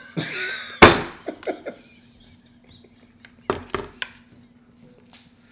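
Heard through a phone's speaker: a man's big burp, then a loud bang as his head hits a garage door. A few short cries follow, and about three and a half seconds in there are a few sharp knocks.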